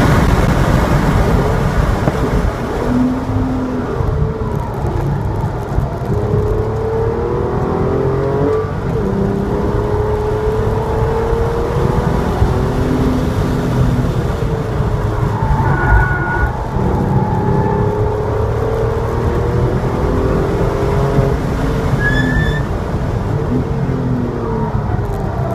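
Porsche 911 Targa's flat-six engine heard from inside the car at racing speed on track. The engine pitch climbs and falls again and again over heavy road and wind noise.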